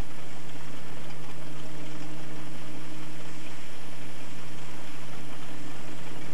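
Steam traction engine belted to a Marshall threshing machine, the two running together: a steady hum over an even hiss.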